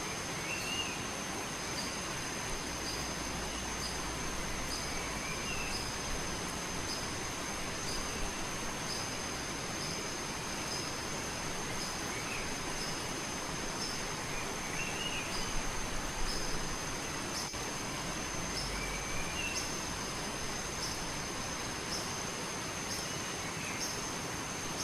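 Steady rush of running water, with a constant high insect-like tone, short high chirps repeating about once a second, and a few brief bird calls.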